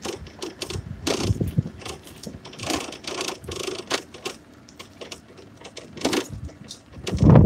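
Shopping cart rattling and clattering as it is pushed over parking-lot asphalt, a run of irregular clicks and knocks in uneven clusters, with a louder low bump near the end.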